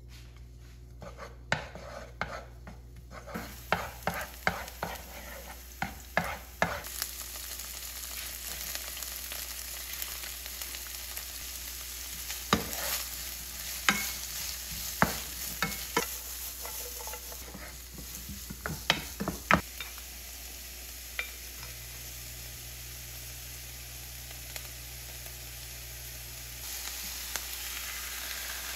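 Vegetables sizzling in oil in a non-stick frying pan, stirred with a wooden spatula that knocks and scrapes against the pan many times. The sizzle grows louder near the end.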